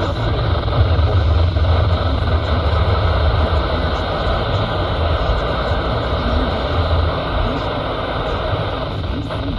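Steady radio static hiss with a strong low hum from a weather radio receiver, with a faint voice barely showing beneath the noise.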